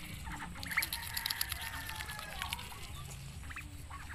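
A Muscovy duck nibbling water spinach from a hand, its bill giving quick clicks and snaps on the leaves, while a bird gives a drawn-out call in the background about a second in.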